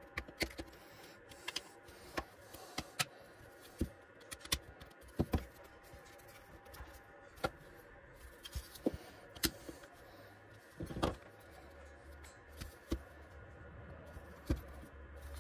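Scattered small clicks and taps of a Raspberry Pi 5 board and its black plastic case being handled and fitted together, with a louder knock about eleven seconds in. A low hum comes in near the end.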